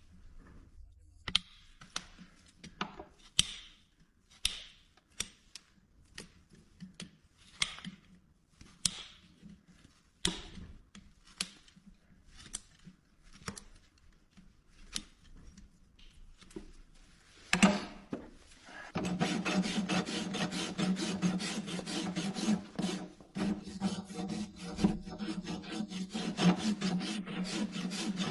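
Farrier's rasp filing a horse's front hoof, in separate strokes about one a second. About two-thirds of the way in it changes to louder, faster, continuous rasping with a steady low hum running under it.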